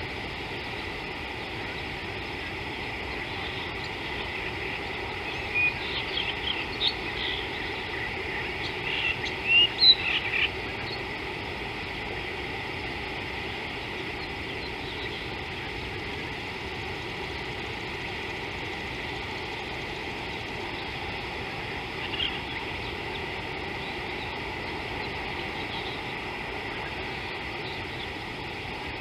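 Steady outdoor bush ambience with a constant hiss, with a cluster of short bird chirps about five to ten seconds in and one more chirp past the middle.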